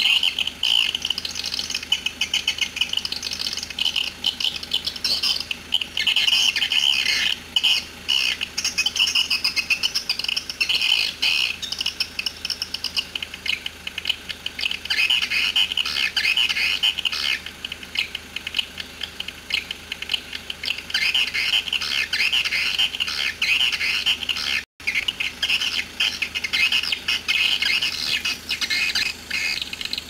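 Swiftlet calls: dense, continuous high-pitched chirping and twittering, with a split-second dropout about three-quarters of the way through.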